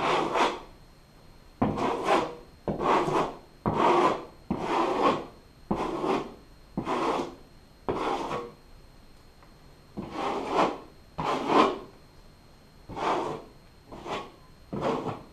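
Metal drywall knife scraped across a textured drywall patch in a string of separate rasping strokes, about one a second, with a short pause a little past the middle.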